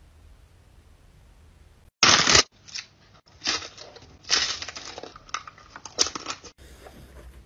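Crunching bites and chewing of a chocolate-coated snack, starting suddenly about two seconds in with a loud bite, then several more sharp crunches over the next four seconds.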